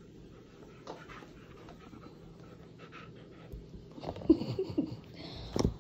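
Husky panting close by, with a few short, pitch-bending whines about four seconds in and a single knock near the end.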